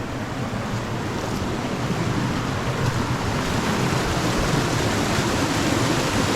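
Mountain river rushing over rocks, a steady roar of flowing water that grows gradually louder.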